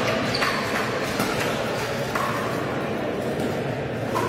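Pickleball paddles striking a hard plastic ball during rallies: a handful of sharp pocks, ringing briefly in a large sports hall, over a murmur of background voices.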